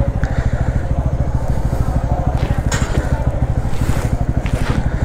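Motorcycle engine running at low speed with a steady, rapid exhaust beat as the bike rolls slowly. A few short sharp noises come about halfway through and near the end.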